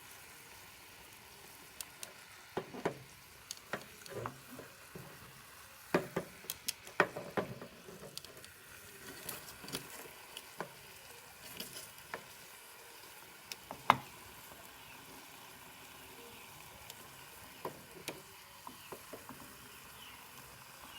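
Potassium nitrate and sugar mixture cooking down in a pot: a faint steady sizzle with scattered clicks and knocks as it is stirred, the loudest knock about 14 seconds in.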